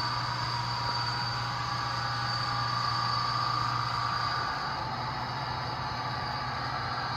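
ESU LokSound decoder in an HO-scale Rapido Budd RDC playing diesel engine running sound through the model's small speaker, steady, dropping slightly in level about four and a half seconds in.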